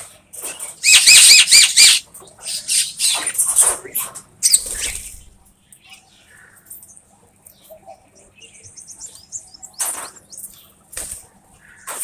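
Birds' wings flapping as common mynas and a dove take off from the ground, in a loud flurry through the first few seconds and a few shorter flutters near the end.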